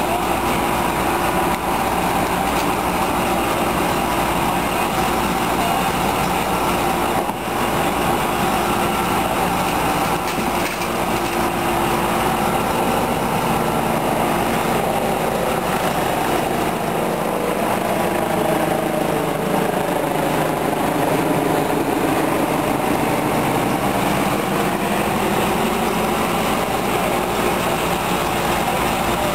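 Small engine of a hydraulic rescue-tool power unit running steadily. Its pitch dips and rises a few times in the middle.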